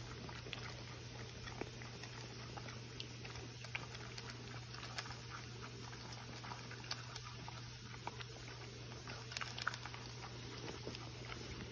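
French bulldog puppy eating dry kibble from a stainless steel bowl: scattered crunches and clicks of kibble against the metal, over a faint steady hum.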